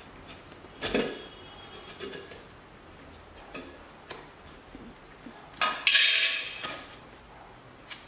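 Coffee beans poured into the clear plastic hopper of a CG-800 coffee grinder, rattling for about a second a little after halfway, with a sharp clack of the plastic hopper lid about a second in and a few light clicks between.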